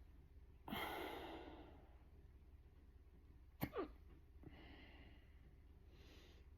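Human hiccups. A strong exhale comes about a second in. A sharp, abrupt hiccup with a quick double catch comes a little past halfway, followed by softer breaths.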